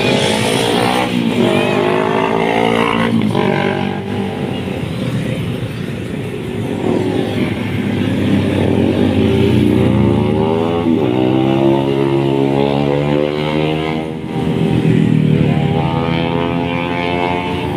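Motorcycles and scooters passing at speed one after another, their engines revving, the pitch rising and falling as each goes by.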